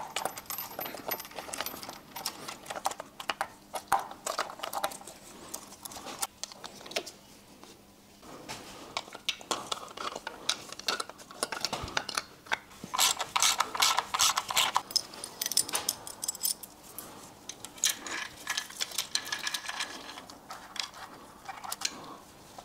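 Steel timing chain clinking and rattling as the new chain is fed by hand over the engine's sprockets and guides: irregular metallic clicks throughout, with a dense run of rattling a little past halfway.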